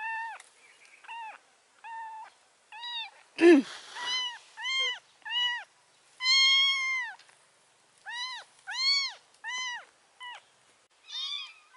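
A very young tabby kitten meows over and over in high cries that rise and fall, about fifteen in all, one of them drawn out about six seconds in. A brief, louder noise comes about three and a half seconds in.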